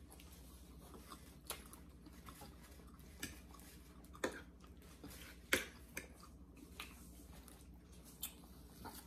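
Eating sounds: a handful of short, scattered clicks and smacks from forks on serving platters and from chewing, over a faint steady low hum. The sharpest clicks come a little after four seconds and around five and a half seconds.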